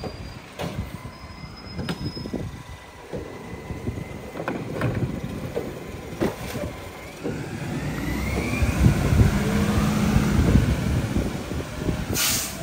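Mack MRU rear-loader garbage truck's engine running, with a few knocks as trash bags go into the rear hopper. From about two-thirds of the way through the engine gets louder and rises in pitch as the truck pulls away, and there is a brief hiss near the end.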